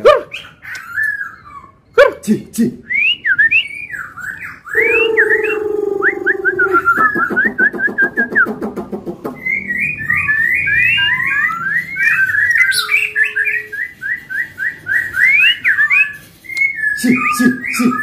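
White-rumped shama (black-tailed murai batu) singing loudly: a varied run of whistled phrases rising and falling in pitch, with a lower held note and then a fast rattling trill about halfway through.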